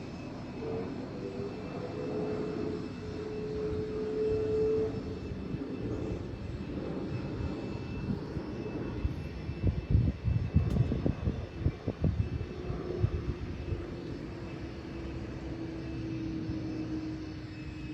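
A steady engine-like drone with a faint tone that drifts slowly in pitch, and a few seconds of low, uneven thumping in the middle.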